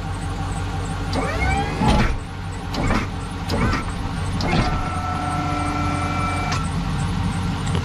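Truck engine idling with a few knocks. About five seconds in, an electric motor whines steadily for about two seconds: the snow plow's electric-hydraulic pump working the plow.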